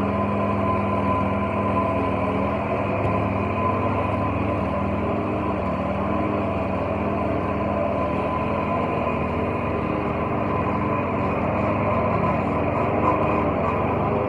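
Walk-behind gas lawn mower's small engine running steadily at a constant speed.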